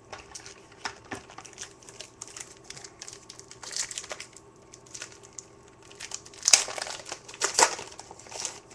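Crinkling of a foil baseball-card pack wrapper being handled, in irregular scratchy crackles that grow louder twice in the second half.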